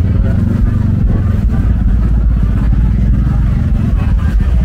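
Street traffic: motorcycle engines running in a steady, loud low rumble.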